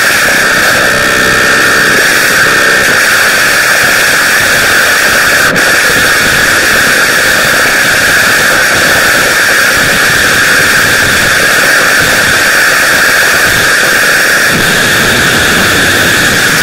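Loud, steady static-like hiss with a strong high band, like white noise.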